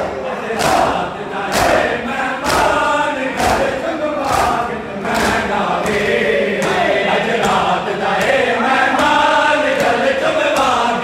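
A large crowd of men chanting a Shia mourning lament (noha) in unison, over rhythmic slaps of open hands striking bare chests in matam, about one strike a second and a little quicker after the first half.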